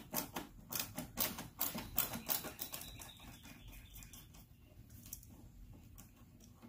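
Ratcheting multi-bit screwdriver clicking as a small star-head (Torx) screw is backed out: quick, uneven clicks about three or four a second, thinning out and stopping about three seconds in.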